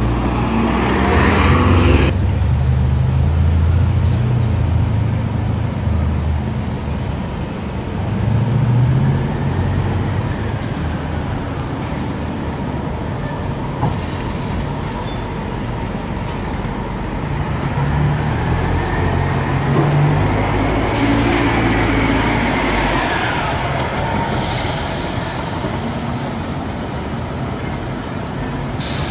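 Diesel city buses running in street traffic, their engines holding a steady low note. Air brakes hiss sharply in the first two seconds and again near the end, and about two thirds of the way through a whine rises and falls as a bus pulls past.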